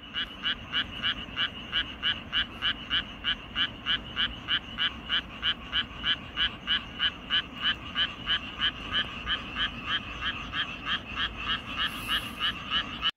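Frogs calling in a steady chorus, a rapid even series of short croaks at about three a second.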